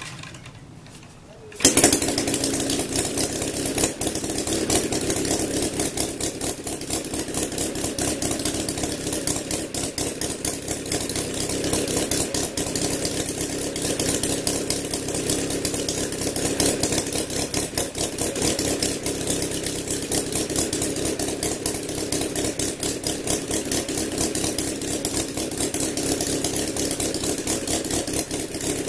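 ROTO 170 cc horizontally opposed four-cylinder four-stroke model aircraft engine turning a 30 x 12 wooden propeller. It ticks over quietly at low idle, is opened up sharply just under two seconds in, and then runs steadily at much higher revs.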